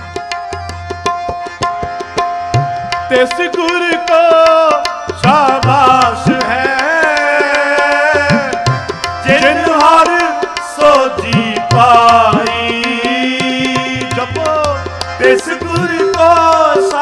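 Gurbani kirtan music: tabla playing a rhythm under a single held note. About three seconds in, a gliding, heavily ornamented melody line enters and carries on over the drumming.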